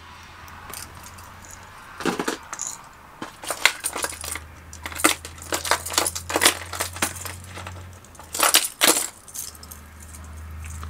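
Hard plastic fishing lures and their metal treble hooks clattering and clinking as someone rummages through a box of them: a run of sharp clicks and rattles starting about two seconds in, over a low steady hum.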